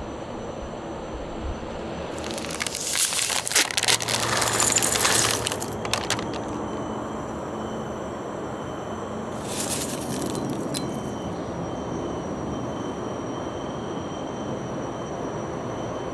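A plastic snack packet crinkling and small crisp fish muruku pieces rattling out into a ceramic bowl. This makes a few seconds of sharp crackling about two seconds in, then a shorter rustle near the middle, over steady background noise.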